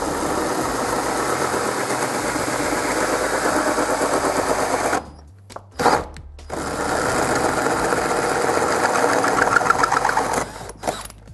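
Power drill running a 2-inch hole saw through a motorcycle race fairing, a dense rapid rattle as the saw cuts. It stops about five seconds in, with a brief blip, then cuts again for several more seconds before stopping near the end.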